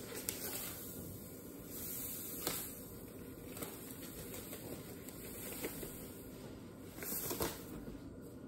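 Faint rustling of a paper sugar bag and granulated white sugar being poured into a measuring cup, with a few light clicks and a slightly louder patch of handling noise about seven seconds in.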